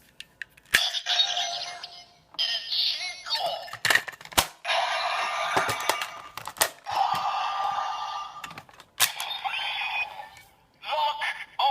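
Toy Sengoku Driver belt with a Genesis core attached, with the Pine lock seed and a second lock seed: sharp plastic clicks as the lock seeds are snapped shut and the belt is worked, each followed by electronic music and a synthesized announcer voice from the toy's small speaker.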